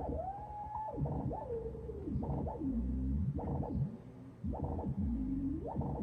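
Behringer Mavis analog synthesizer sweeping up and down in pitch: a string of swooping, gliding tones, dipping and rising about once a second, with light reverb.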